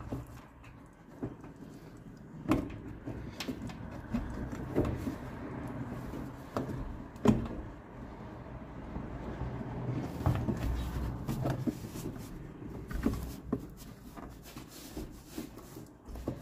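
Holden WB's plastic heater box cover knocking, clicking and scraping as it is worked by hand over the heater pipes and grommets. Irregular sharp knocks sound over a low rumble, the loudest about seven seconds in.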